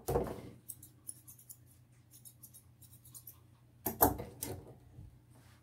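Steel grooming shears snipping a Pomeranian puppy's coat: a run of quick, light snips. Two louder rustling handling noises come right at the start and again about four seconds in.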